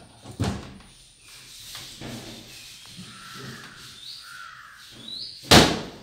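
Aluminium-framed glass kitchen cabinet door being handled, opened and shut: a knock about half a second in and a loud clack near the end.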